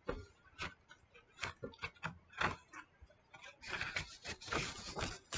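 Pages of a picture book being handled: faint scattered taps and paper rustles, then a longer rustle as a page is turned over in the last second and a half or so.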